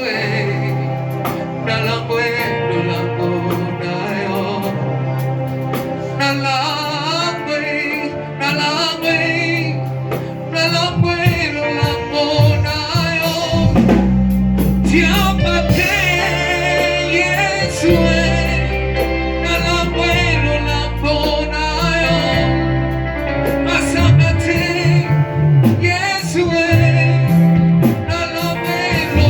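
Gospel music in church: voices singing with a wavering vibrato over an instrumental backing, with a deep bass line coming in about halfway through.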